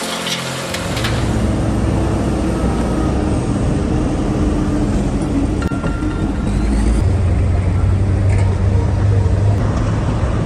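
Large diesel engine of heavy machinery running steadily, a little louder about seven seconds in.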